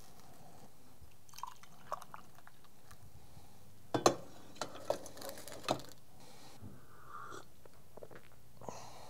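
A few short sips of hot black coffee from a glass mug, heard as brief slurps and small mouth sounds about four to six seconds in, over quiet room tone.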